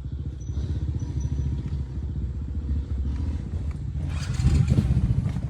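Off-road dirt bike engine running with a rapid low pulsing, getting louder for about a second about four seconds in.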